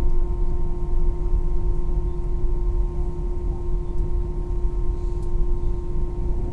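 Airbus A319 jet engines running at a steady setting, heard inside the cabin as a steady whine over a deep rumble while the airliner rolls along the ground.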